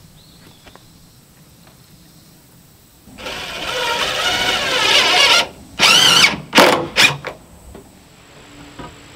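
Cordless drill driving a screw into wooden trim: one run of about two seconds that grows louder, then three short bursts as the screw is seated.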